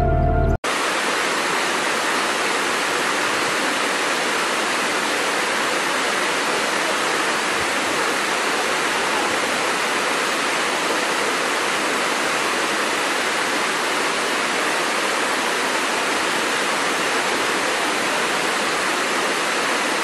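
Steady rush of a waterfall cascading over rocks: an even hiss of falling water that neither rises nor falls. A brief moment of music cuts off at the very start, before the water sound begins.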